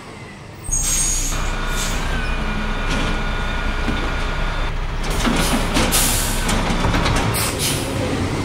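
Garbage truck sound effects: a diesel engine runs steadily, with a hiss like an air brake about a second in. A steady hydraulic whine follows while the arm lifts the bin, and then clattering as the bin is tipped and emptied.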